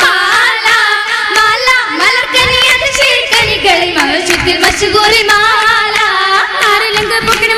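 Oppana: female voices singing a Mappila song in chorus, with the dancers' rhythmic hand clapping keeping the beat.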